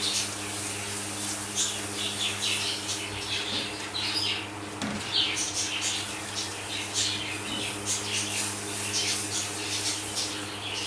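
Hot oil sizzling and spitting in a kadhai, with whole cloves, black peppercorns and a chicken stock cube frying in it. It crackles in irregular bursts over a steady low hum.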